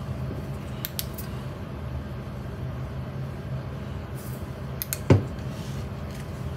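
Steady low hum with a few small clicks, and one louder knock about five seconds in.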